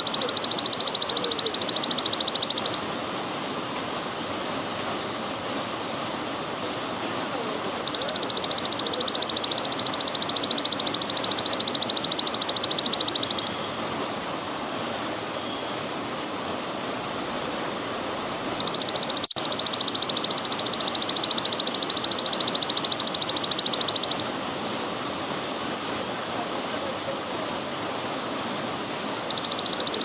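Belalang emas (golden grasshopper) singing a loud, high-pitched buzzing trill in bouts of five to six seconds, with pauses of about five seconds between them. Under it, water trickles steadily.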